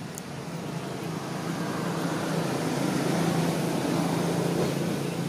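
A motor vehicle's engine running with a steady hum, its noise growing louder over the first three seconds or so and then holding.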